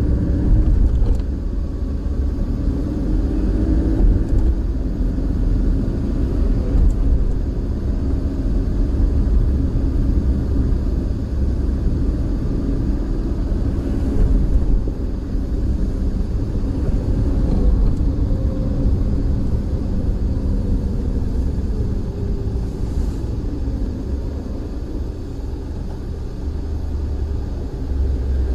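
Car being driven, heard from inside: a steady low rumble of engine and road noise with small swells in level.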